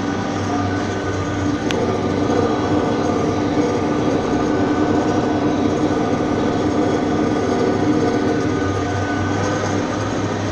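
Tractor engine running steadily under load, a constant drone with rough mechanical noise, and a single sharp click about a second and a half in.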